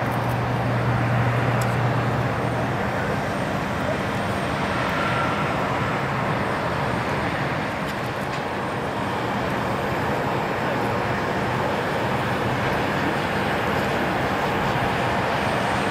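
Embraer 195 airliner's twin GE CF34-10E turbofan engines running as the jet rolls along the runway after landing: a loud, steady rushing jet noise, with a low hum that fades out about three seconds in.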